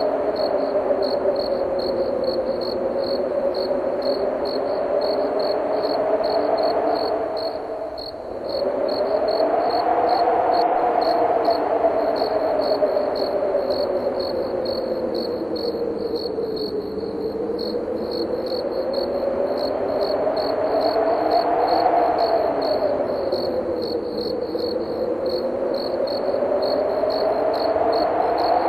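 Crickets chirping in even, rapid pulses over wind that howls with a low moaning tone, slowly rising and falling in pitch and dying down briefly about eight seconds in.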